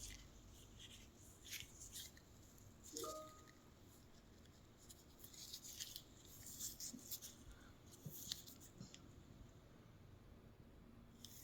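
Near silence in a quiet room, with scattered faint rustles and small clicks and one brief faint squeak about three seconds in.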